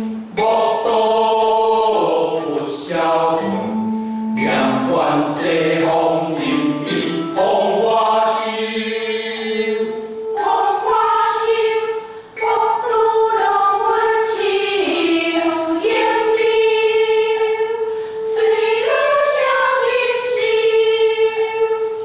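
Mixed choir of men and women chanting a classical Chinese poem in Taiwanese Hokkien (Holo) poetry-chanting style. The lines are drawn out on long held notes: the men's lower voices drop out about halfway through, and the women's higher held note carries on.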